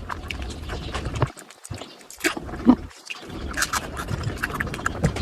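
Close-miked chewing and lip-smacking while eating: irregular wet mouth clicks and smacks with no words.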